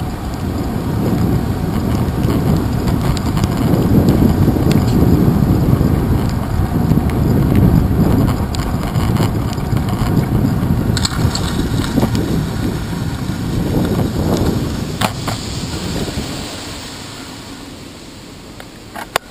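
Wind rushing over a handlebar-mounted camera's microphone on a moving bicycle on wet pavement, a steady low rumble. A few sharp knocks come in the second half, and the rush dies down about three seconds before the end as the bike slows.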